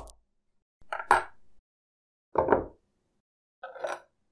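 Metal table knife knocking and scraping against a block of katsura wood: three short separate clunks and clinks about a second apart, the middle one the deepest.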